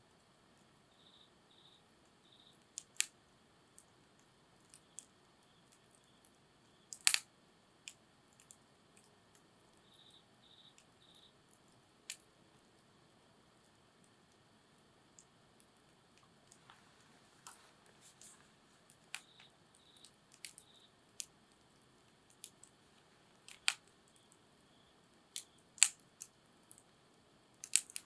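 Wood campfire crackling quietly, with sparse, irregular sharp pops and snaps. The loudest snap comes about a quarter of the way in.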